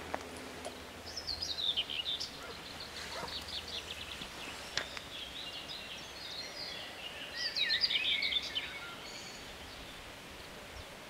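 A songbird singing two quick, descending song phrases, about a second and a half each, one near the start and one about seven seconds in, over faint outdoor background noise.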